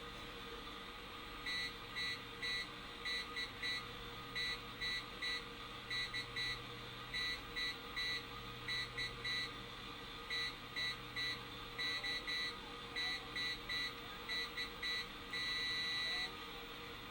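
Morse code keyed as short and long beeps of one high tone, coming through a small AM radio's speaker over steady static hiss and hum. The beeps begin about a second and a half in and end on one longer tone near the end.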